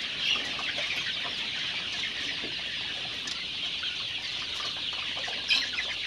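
A large flock of young Golden Misri chickens calling together in a steady, dense, high-pitched chorus of chick peeps. A few calls stand out louder, one just after the start and one about five and a half seconds in.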